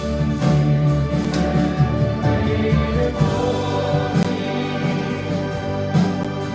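Live worship song: voices singing a slow melody over acoustic guitar and piano, with the band's low sustained notes underneath.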